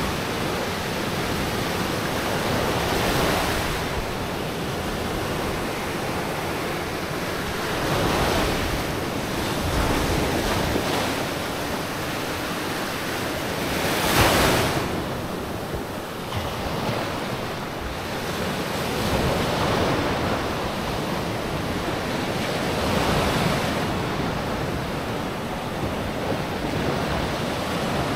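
Sea waves breaking and washing up a sandy beach, a surge of surf every few seconds with the loudest about halfway through, over wind on the microphone.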